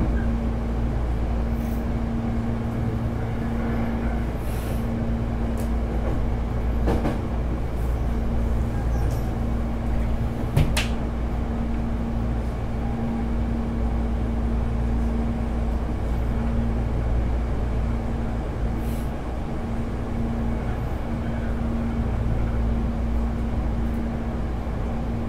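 Hankyu 8300 series electric train running along the line, heard from inside the car: a steady rumble of wheels on rail with a constant hum. The air conditioning is running. A few scattered clicks, with one sharp click about ten and a half seconds in.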